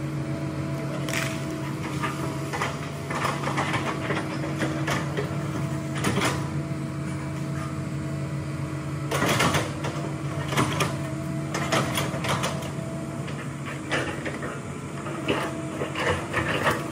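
Hitachi crawler excavator's diesel engine running steadily, with scattered knocks and creaks from its tracks and bucket as it works and moves over the muddy ground.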